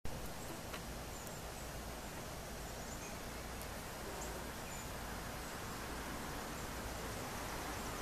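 Steady outdoor background hiss with faint, short, high-pitched bird chirps scattered through it and an occasional light click.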